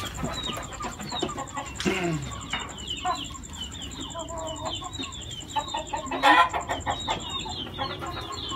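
Chickens clucking, with a steady run of short, high, falling peeps and a loud sudden noise about six seconds in.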